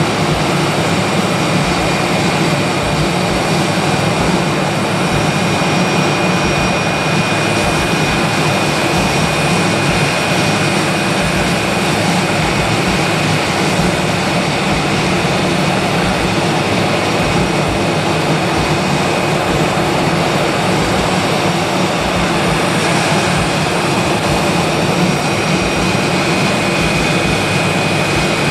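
Airbus A320 jet engine and airflow noise heard inside the cabin, a steady unchanging roar with a thin high whine running through it.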